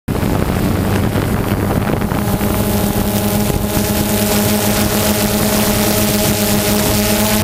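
A steady motor hum holding one pitch throughout, with wind rushing over the microphone. It starts abruptly right at the beginning.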